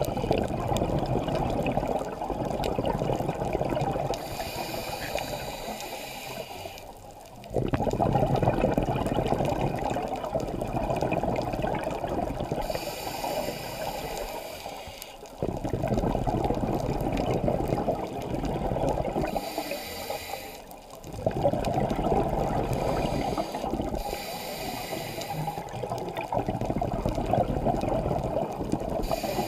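A scuba diver breathing through a regulator underwater: bursts of bubbling, rushing exhaust alternate with higher hissing breaths in a slow cycle of several seconds, about four breaths in all.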